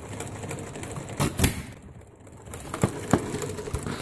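Scale-model Briggs double side shaft gas engine running on propane fed through a makeshift pipe-tube mixer. It fires in pairs of sharp pops about every second and a half, with a steady mechanical clatter from the engine between them.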